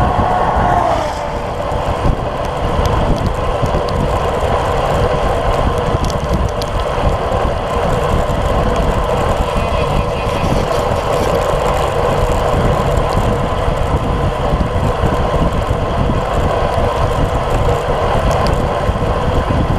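Steady, loud wind rushing and buffeting over a bike-mounted action camera's microphone at about 38 km/h, mixed with tyre noise from road-bike tyres on wet asphalt.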